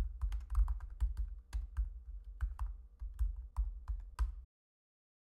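Keystrokes on a computer keyboard, about four a second, typing out a terminal command; the sound cuts off suddenly to dead silence about four and a half seconds in.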